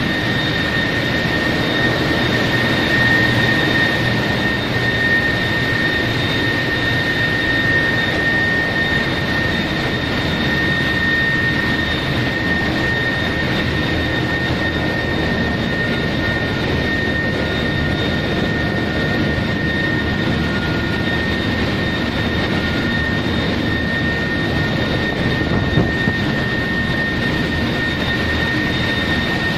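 Ship's engine-room machinery running: a loud, steady mechanical roar with a constant high-pitched whine over it.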